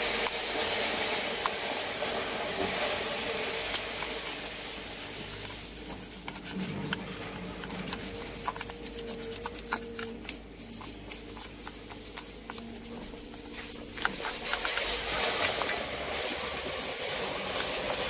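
A toothbrush scrubbing corrosion off a battery terminal post: a scratchy rubbing with scattered small clicks. It is louder in the first few seconds and again near the end, and fainter in between.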